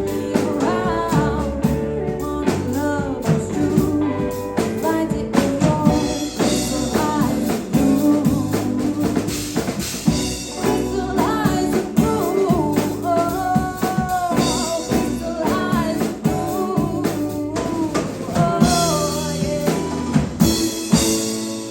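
A live rock band playing: lead vocal and lead lines over electric guitars, bass and a drum kit with frequent snare hits. Near the end a held chord rings on as the song winds down.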